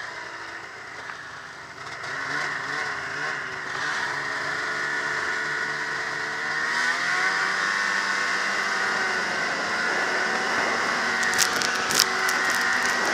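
Ski-Doo MXZ 700 snowmobile's two-stroke twin engine running under way. The pitch wavers as the throttle is worked, climbs about six seconds in as the sled accelerates, then holds higher and louder. Two sharp knocks come near the end as the sled jolts.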